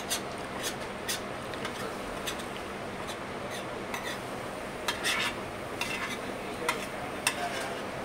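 Steel spoon clinking and scraping against a stainless steel thali as it stirs and scoops chickpea curry: scattered light clicks, busiest about five seconds in, over steady background noise.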